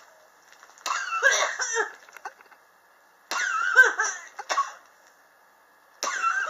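A person coughing with a chronic cough: three separate harsh coughs about two and a half seconds apart, each starting abruptly and dying away within about a second.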